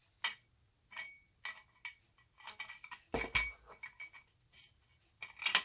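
Light metallic clinks and clicks as a twin pull control unit is slid along the grooves of an aluminium head rail tube, with a heavier knock about three seconds in.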